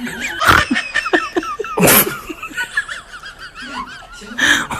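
People laughing, with sharp, loud, breathy bursts about half a second and two seconds in, and again near the end.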